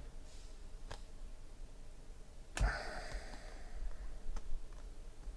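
Stack of Panini Prizm chromium trading cards being flipped through by hand: a few light clicks as cards slide and snap against each other, with one louder knock and a brief hiss about two and a half seconds in.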